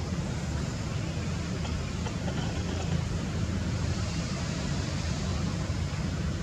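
Steady low rumbling background noise with a light hiss, unchanging throughout.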